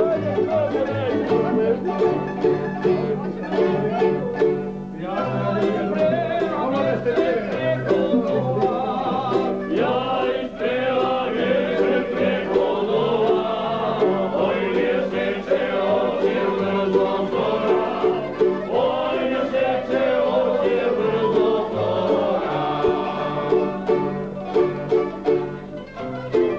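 Tamburica ensemble playing a lively folk dance tune on plucked strings over a steady bass pulse, with voices singing along.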